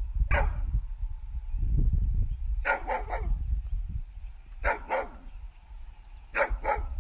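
Dog barking: about eight short barks, one at the start and then in groups of two or three, over a low rumble.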